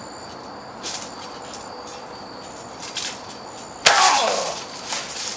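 Bodies landing on a backyard trampoline: a few light thumps, then a loud crash about four seconds in as a wrestler is slammed onto the mat, the springs and mat ringing with a falling tone as it rebounds.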